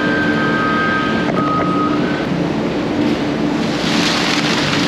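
Vehicle driving at steady speed: a constant engine drone under road and wind noise.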